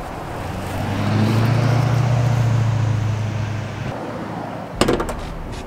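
A motor vehicle driving past: engine hum and road noise that swell to a peak and fade away over about three seconds. A few sharp clicks follow near the end.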